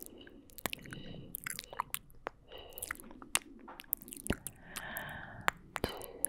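Close, wet mouth sounds into a microphone with a furry windscreen: irregular tongue clicks and lip smacks, several tracks layered together, with a short breathy hiss about five seconds in.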